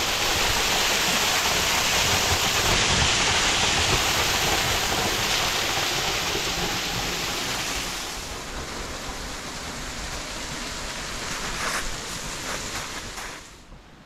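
Small mountain waterfall rushing and splashing right at the microphone, with spray striking the camera. The rushing eases after about eight seconds and falls away sharply near the end.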